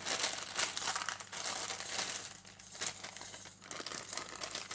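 Small clear plastic zip-lock bag of electronic components crinkling as it is picked up and handled.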